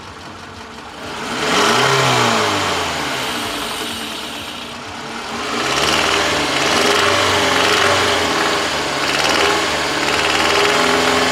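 Car engine being revved: the pitch climbs about a second in and sinks back, then the engine is revved again and held at higher speed with a wavering pitch.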